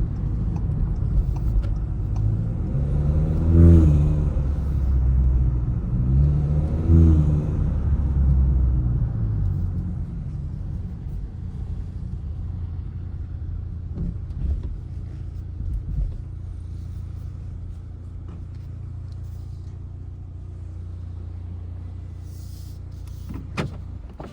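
Turbocharged four-cylinder engine of a Mk7 Volkswagen Jetta with an aftermarket intake, revving up and back down twice, then settling into a steady idle. A click comes near the end, and the engine sound then drops away.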